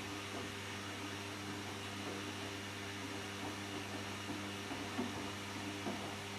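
Washing machine running its wash cycle: a steady motor hum, with a couple of soft knocks near the end.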